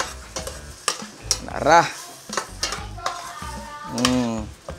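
Metal spatula scraping and clinking against the bottom and sides of a stainless steel stockpot in quick irregular strokes, stirring vegetables and black beans sautéing in oil, with light sizzling.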